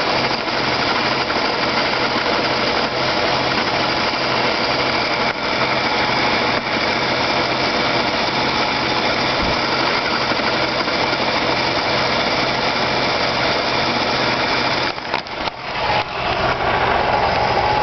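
A vehicle running with a steady mechanical whirring and rattling noise from the transmission area. About fifteen seconds in the sound dips and stutters a few times, then carries on with a stronger steady whine.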